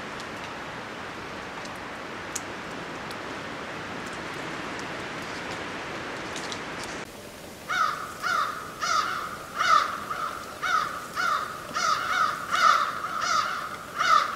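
A steady hiss, then from about seven seconds in a crow cawing over and over, roughly two harsh caws a second.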